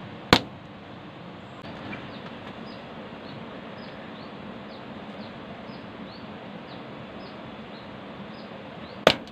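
Two sharp air-rifle shots, one just after the start and one near the end, over steady outdoor hiss with faint high chirps repeating about twice a second.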